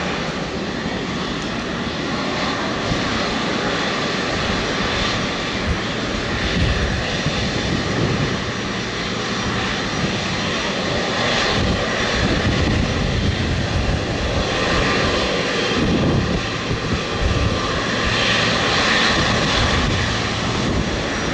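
Boeing 777-200LR's General Electric GE90 turbofan engines running at taxi power: a steady jet rush with a faint high whine, growing louder a couple of times in the second half as the aircraft passes.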